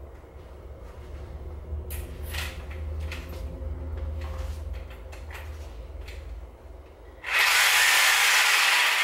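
A low, steady rumble with a few scattered handling clicks and knocks, then about seven seconds in a reciprocating saw is switched on and runs loudly and steadily, revved in the air.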